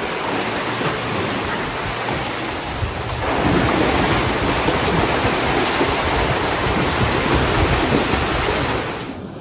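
Water splashing and churning as a swimmer kicks with fins and strokes freestyle with hand paddles close by. The splashing gets louder about three seconds in and stops abruptly near the end.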